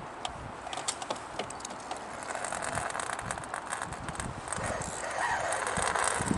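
Water rushing and splashing along the hull of a moving kayak, with irregular knocks and clicks. The rush grows louder over the last few seconds.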